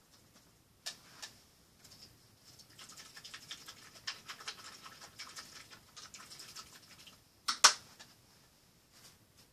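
Small hard objects being handled and rummaged through: a couple of light clicks, then a few seconds of quick ticking and rattling, and two sharp clacks near the end, the loudest sounds here.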